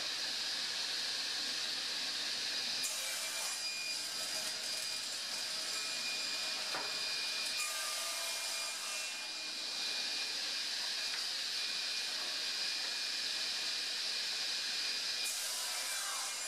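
Sliding table panel saw running steadily with its circular blade spinning, crosscutting hardwood boards three times; each cut brings a brief rise in hiss.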